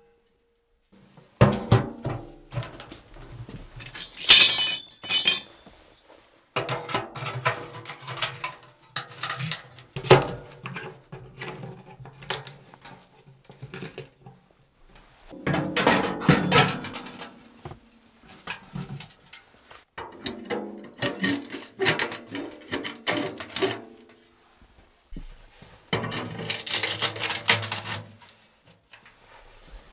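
Sheet-metal stovepipe sections and a metal wood stove clanking, scraping and ringing as the pipes are handled and fitted together. The sound comes in several stretches, each cut off by a sudden silence.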